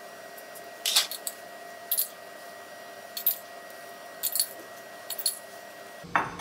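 Metal spoon clinking and scraping against a metal baking tray and zucchini shells as chickpea stuffing is spooned in: about six short, light clinks at irregular intervals of roughly a second, over a faint steady hum.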